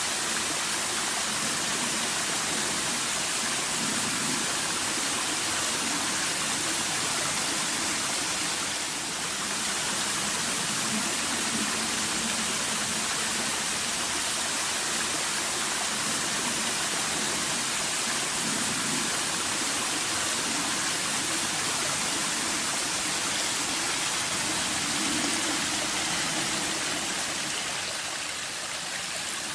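Cascading water from a waterfall on a Swabian Alb stream, rushing in a steady, even hiss.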